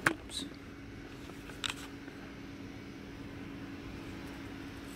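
Steady electrical hum of room tone, with a sharp click just after the start and a softer click about a second and a half later from the camera being handled.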